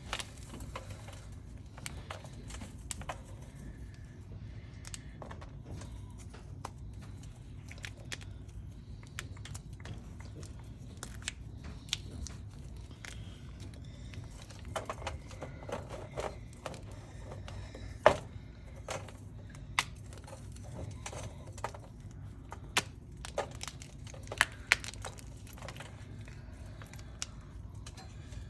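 Hard chunks of dyed, dehydrated gym chalk being crushed and crumbled by hand. Irregular crackling and crunching with sharp snaps, the loudest about 18 seconds in, over a steady low hum.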